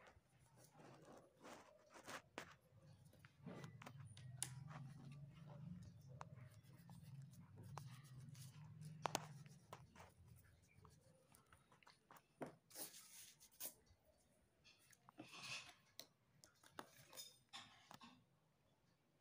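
Faint pencil on sketchbook paper, drawing lines along a plastic ruler, with scattered small clicks and taps and a few short scratchy strokes. A faint low hum runs from about three to ten seconds in.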